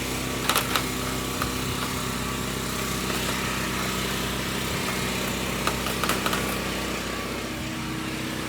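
A small engine running steadily at one even pitch, with a few sharp clicks and rattles about half a second in and again about six seconds in, as of a locked gate latch being tried.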